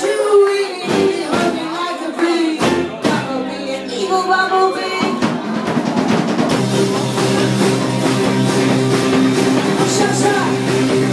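A rock band playing live, with drums and singing, then from about the middle a long held chord that rings on to the end.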